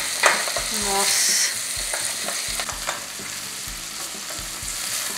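Diced bacon and onion frying in butter in a steel pot: a steady sizzle, swelling for a moment about a second in as sliced leeks go into the hot fat, with a silicone spatula scraping and stirring against the pot.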